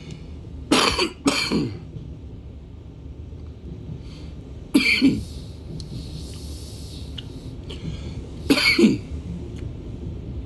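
A man coughing in a fit: two harsh coughs in quick succession about a second in, another about five seconds in, and one more near the end, over the steady low rumble of a suburban electric train.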